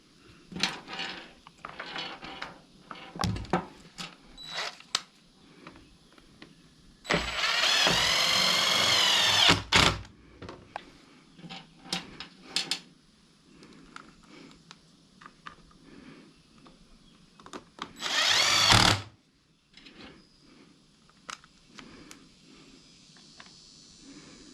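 A power drill driving screws back in, in two runs: the first about two and a half seconds long with its pitch bending as the screw takes up, the second about a second. Light clicks and knocks of parts being handled come between them.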